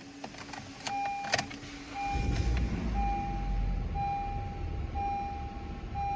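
A 2013 Honda Civic LX's 1.8-litre four-cylinder engine starts after a few clicks, catching about two seconds in and settling into a steady idle. A warning chime beeps about once a second throughout, with the driver's door open.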